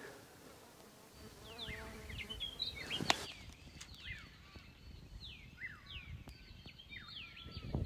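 Birds calling with many short, falling whistled notes over a low background rumble. A fly buzzes close by for about a second, roughly two seconds in, and a single sharp click comes about three seconds in.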